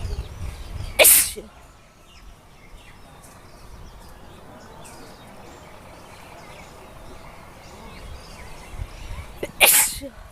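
A person sneezing twice, about eight seconds apart, each a single sharp loud sneeze; the sneezes are brought on by pepper.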